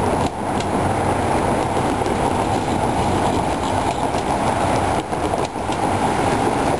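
Tri-Rail commuter train rolling past: a loud, steady rumble of wheels on rail.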